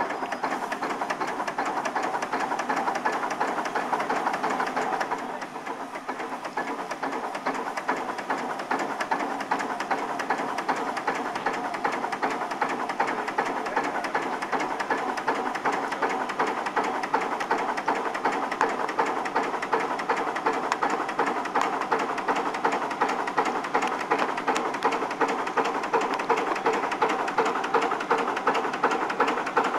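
Steam crane's engine running with a quick, even chuff as it hoists a heavy load on its chains. It starts suddenly and keeps a steady beat.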